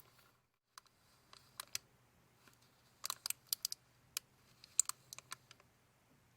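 Light, sharp clicks and taps from a handmade paper binder file and its card pages being handled, coming in two quick clusters about three and five seconds in.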